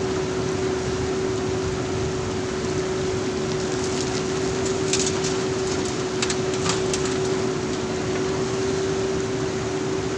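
JCB backhoe loader's diesel engine running steadily with a constant whine, with a few short rattles and clicks about halfway through.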